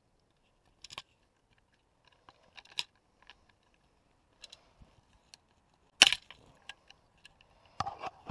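A series of sharp clicks and knocks from hand tools and small metal parts being worked and handled, spaced a second or two apart, the loudest a sharp snap about six seconds in.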